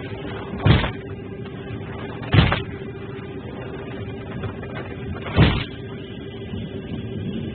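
Airliner overhead luggage bin lid slammed shut by hand three times, each a loud bang, over the steady hum of the aircraft cabin.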